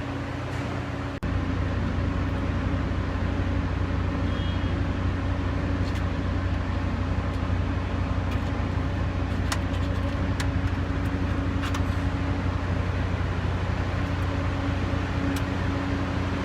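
A motor or engine running steadily, stepping up in level about a second in, with a few light clicks over it.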